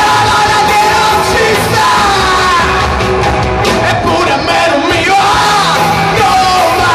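Rock song played by a band, with a voice holding long, bending yelled notes over the band.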